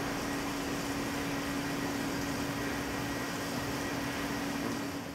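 Tormach 1100M CNC mill spindle running with a small end mill cutting a metal plate: a steady machining hiss with a steady hum underneath.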